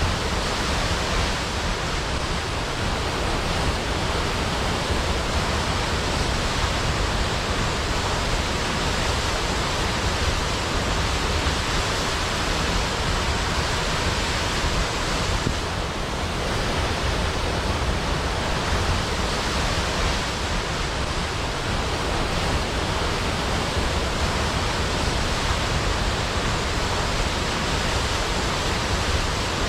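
Large waterfall pouring steadily, a dense, even rush of falling water.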